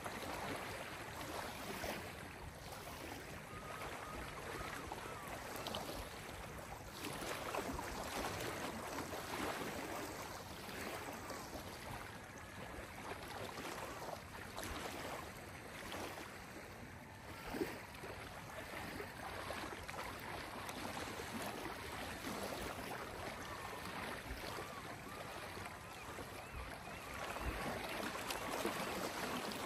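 Small lake waves lapping steadily on a dark gravel shore, a continuous soft wash with gentle swells. About two-thirds of the way in there is one brief louder slap.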